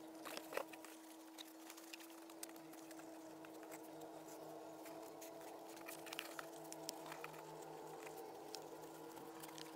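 Faint scattered clicks and taps of cardboard toilet-paper-tube rings and willow chew sticks being handled and pushed together, over a steady hum.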